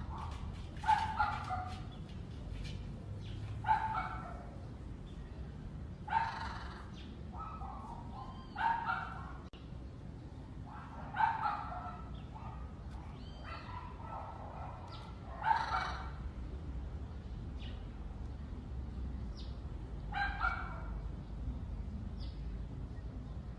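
An animal's short, harsh calls repeated about eight times, every two to five seconds, over a steady low rumble.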